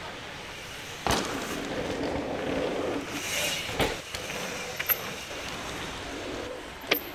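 Mountain bike riding a dirt trail: tyres rolling and scrubbing over packed dirt, with three sharp knocks about a second in, near four seconds and near the end.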